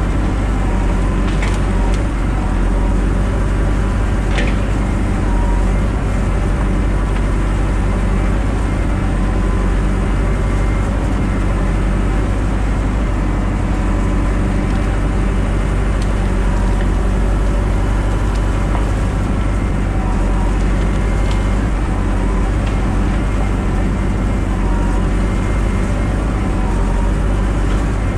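Crane truck's engine running steadily under load, driving the hydraulic loader crane as it handles cut brush and logs, with a few sharp knocks of wood and steel.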